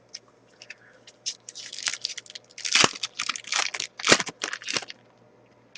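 Foil wrapper of a hockey card pack being torn open and crinkled, a quick run of crackles and rustles that stops about five seconds in.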